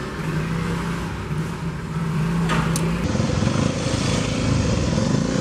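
Motorbike engines running, with a sharp click about two and a half seconds in; from about three seconds the engine sound turns louder and busier.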